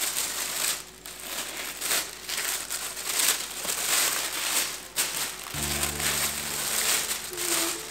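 Sheets of tissue paper rustling and crinkling as they are lifted and folded back, in uneven bursts. A steady low tone joins about two-thirds of the way in.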